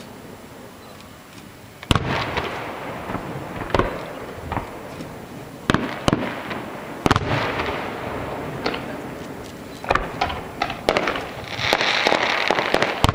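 Aerial firework shells bursting: a string of sharp booms, the first about two seconds in and then every one to two seconds, each trailing off in a rolling echo, with a dense crackling near the end.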